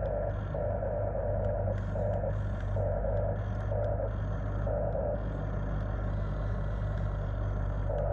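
Small electric motors and gearboxes of radio-controlled construction models whirring in short on-and-off bursts, over a steady low hum.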